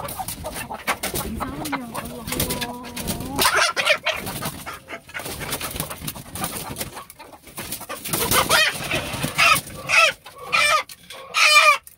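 Chickens clucking and squawking in alarm while one of them is being chased and grabbed, with rustling and knocking in the coop. The calls come quicker and louder in the last few seconds.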